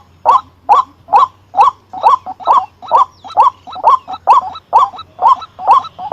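White-breasted waterhen calling, a steady run of short, rising croaking notes repeated about twice a second.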